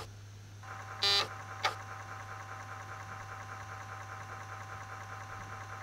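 Steady electrical hum and a faint pulsing whine from the Commodore 64's audio output while a program loads, with a click at the start, a short beep about a second in and another click just after.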